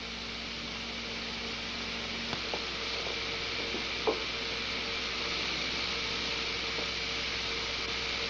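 Steady hiss of air-charged cleaning foam spraying from a foamer hose nozzle, slowly growing louder, over a faint steady hum, with a couple of light clicks.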